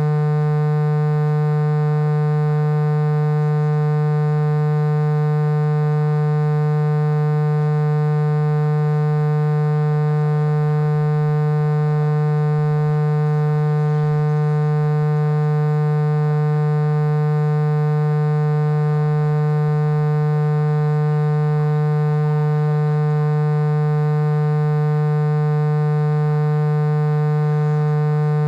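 Loud, steady electrical buzz, a mains-type hum with many overtones that never changes in pitch or level, covering any sound from the field.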